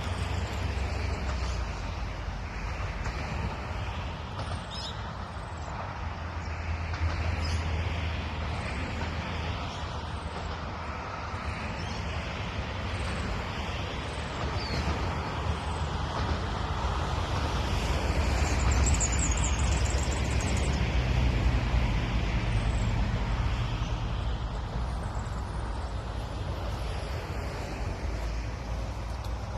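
Short, faint, high bird chirps scattered throughout, over a loud, steady outdoor rumble that swells slowly.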